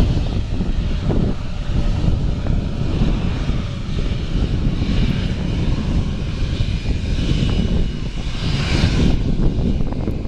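Airbus A330-300 airliner's twin Rolls-Royce Trent 700 turbofans at takeoff power as the aircraft climbs away: a steady low rumble of jet noise. A higher hiss swells from about five to nine seconds in.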